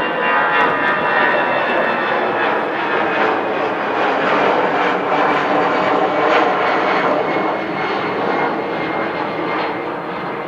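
Jet airliner's engines running at taxi power: a steady, loud engine noise with a high-pitched whine in it, easing slightly near the end.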